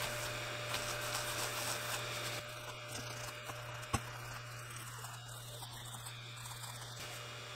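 Paper towel wet with isopropyl alcohol rubbing over a stainless steel sheet: a faint, soft scrubbing, strongest in the first two seconds or so, over a steady low hum, with one sharp click just under four seconds in.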